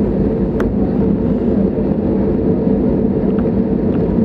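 Airbus A320neo's CFM LEAP-1A engines running steadily at taxi power, heard inside the cabin as a loud, even rumble with a steady hum. A single faint click about half a second in.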